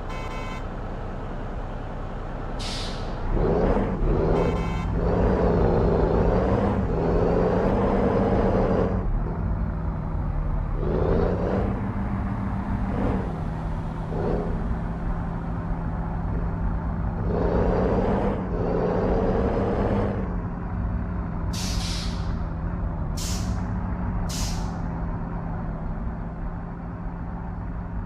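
Heavy truck's diesel engine running and pulling under load, with two stretches of louder revving. Short hisses of air-brake release come once early and three times in quick succession near the end.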